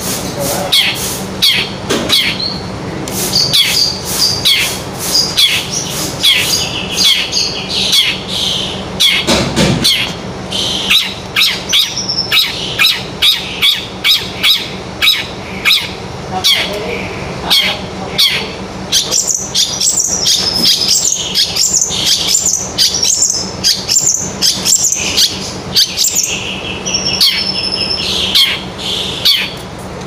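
Long-tailed shrike (cendet) singing hard: sharp, scratchy call notes repeated two or three times a second, woven with stretches of rapid high warbling.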